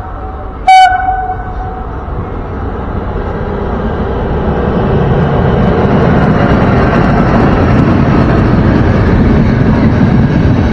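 An Intercity train, hauled by an electric locomotive, sounds one short horn blast about a second in. Then it comes alongside, its rumble growing louder and staying loud and steady as the coaches pass close by.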